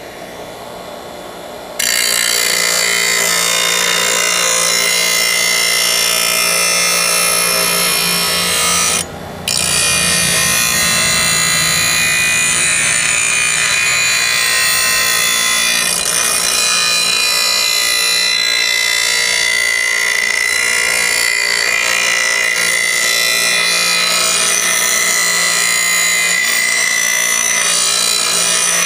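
A 6-inch bench grinder running, then a steel lawn mower blade pressed against its wheel, grinding steadily as the cutting edge is sharpened. The blade comes off the wheel for a moment about nine seconds in, leaving only the motor's hum, then goes back on and grinds without a break.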